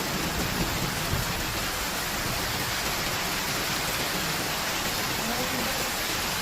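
Steady heavy rain, an even dense hiss of falling rain with no let-up.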